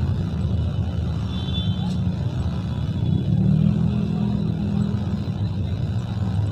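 Steady low rumble of car and motorbike engines crawling in a dense traffic jam.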